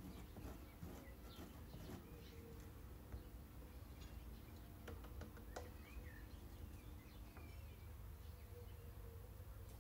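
Faint bird chirps over a low, steady background rumble, with a couple of light clicks about five seconds in.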